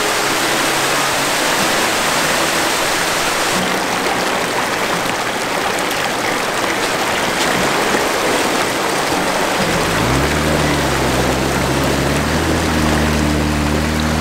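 Steady rush of fast-flowing stream water. Its sound changes abruptly about three and a half seconds in, and low background music comes in about ten seconds in.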